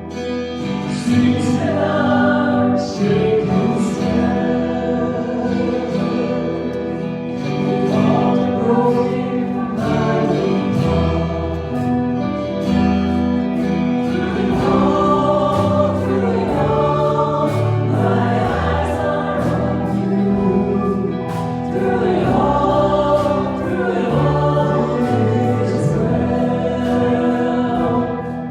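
Choir singing a gospel song with musical accompaniment, sustained low notes under the voices.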